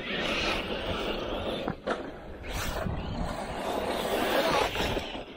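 Battery-electric 1/8-scale RC monster trucks driving hard: a steady rush of tyre and drivetrain noise, with a couple of sharp knocks about two seconds in.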